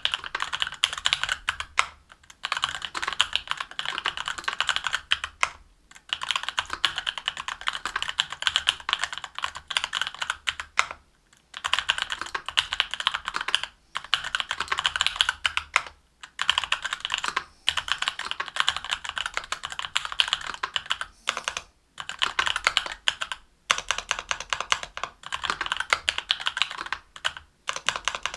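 Typing on a Linworks Dolphin mechanical keyboard with stock Durock Korbs 62 g linear switches, an aluminium plate, GMK Modern Dolch Light keycaps and lubed screw-in stabilizers. Quick, continuous keystroke clatter comes in runs, broken every few seconds by short pauses.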